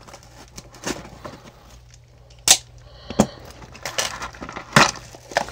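Taped cardboard shipping box being cut and pried open by hand, giving a series of sharp snaps and cracks, the two loudest about two and a half and five seconds in.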